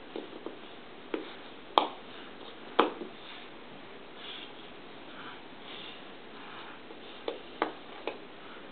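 Cardboard jigsaw puzzle pieces being handled and set down, giving scattered light taps and clicks. The two sharpest come about two and three seconds in, and a few more come near the end.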